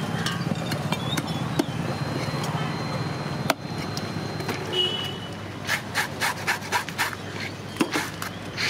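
Large knife working a murrel fish on a wooden stump chopping block: a sharp knock about three and a half seconds in, then a quick run of short knife strokes, about three a second, near the end, over a low steady hum.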